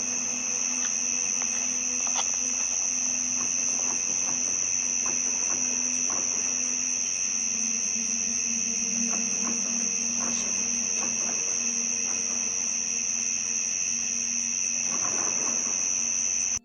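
Steady, unbroken high-pitched chorus of insects such as crickets, with a low steady hum underneath and a few faint clicks; no booms stand out.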